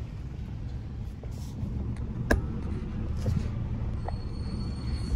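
Steady low rumble of a car's engine and tyres, heard from inside the moving car, with a sharp click a little over two seconds in.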